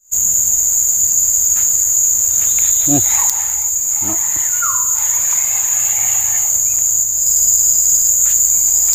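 Loud insect chorus from the riverside forest: a steady, high-pitched drone that does not let up, with a few faint short calls underneath.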